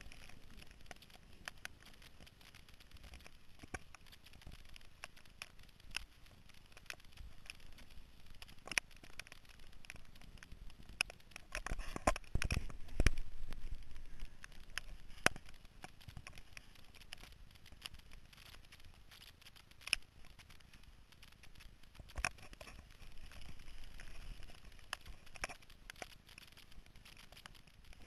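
Carveboard rolling over wet pavement: a quiet rolling hiss scattered with irregular clicks and taps. A louder low rumble comes about twelve to fourteen seconds in.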